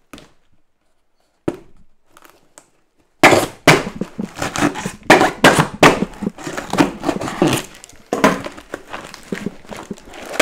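Packing tape being cut and ripped off a cardboard box, the cardboard crackling and tearing. A few faint clicks, then about three seconds in a fast, loud run of rasping rips and crackles.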